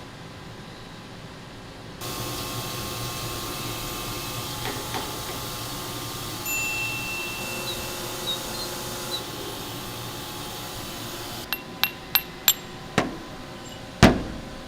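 A CNC grinding machine running with a steady whir, which grows louder about two seconds in. Over the last few seconds come several sharp, ringing metallic clinks, with a louder knock near the end.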